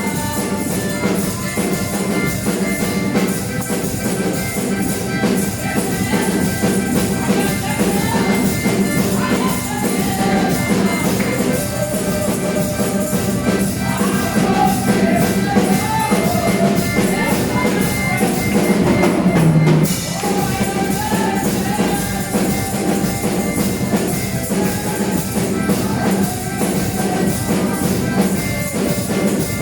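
Church praise music: a band playing with a steady, driving percussion beat under sustained chords.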